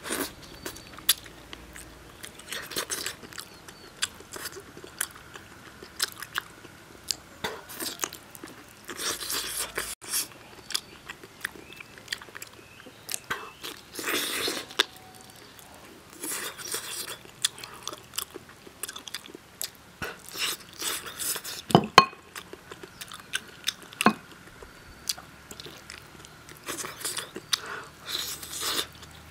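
Close-up chewing and gnawing on braised spicy lamb trotters, with irregular wet smacks and clicks as the soft, fully braised skin is pulled off the bone; one sharp click about three-quarters of the way through.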